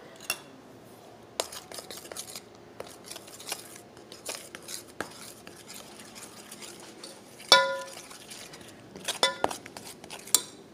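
Metal utensil stirring flour, water and ghee into dough in a stainless steel pot: soft scrapes and light taps against the pot, a ringing clink about seven and a half seconds in, and a few sharper clinks near the end.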